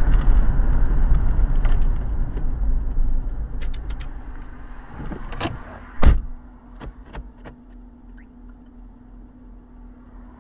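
Car cabin noise picked up by a dashcam: low road and engine rumble while driving, dying away over the first five seconds as the car slows to a stop. A sharp thump comes about six seconds in, then a low steady idle hum with a few light clicks.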